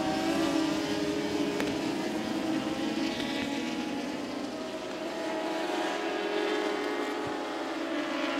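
A pack of superbike racing motorcycles under power, many engine notes overlapping into one steady, gently wavering sound as the whole field runs bunched together through the opening corners.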